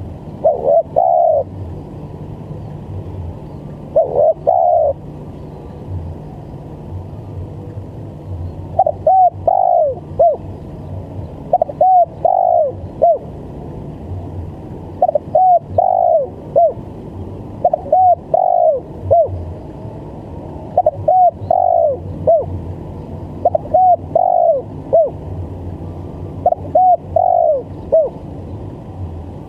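Spotted dove cooing in the stuttering 'gagap' style: short phrases of a few quick coos, repeated about every three seconds, with a longer pause between the first few phrases. A steady low hum runs underneath.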